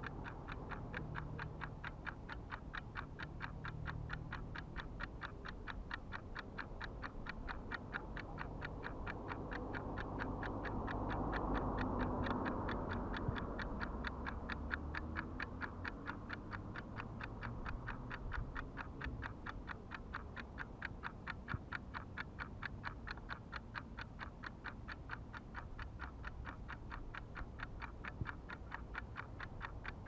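Steady, rapid mechanical ticking, several even ticks a second, over a low rumble; a broad swell of noise rises and fades about midway through.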